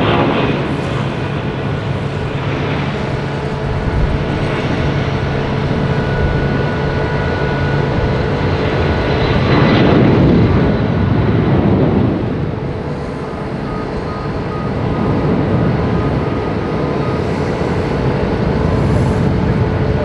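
Boeing 757 jet engines at takeoff power through the takeoff roll, liftoff and climb-out: a steady jet roar, loudest about ten seconds in as the plane lifts off, then dipping briefly and carrying on as it climbs away.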